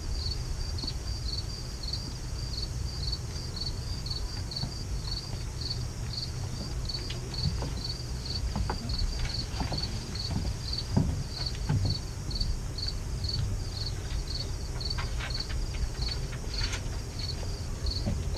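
Cricket chirping steadily, about two high chirps a second, over a low background rumble.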